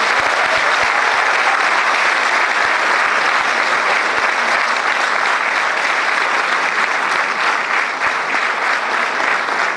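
Audience applauding steadily, thinning near the end into more separate claps.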